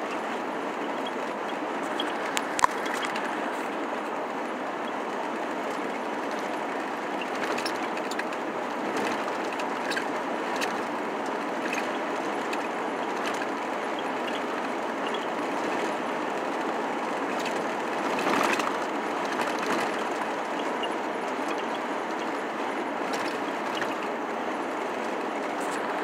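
Steady road and wind noise of a vehicle on the move, with scattered light ticks and one sharp knock a few seconds in.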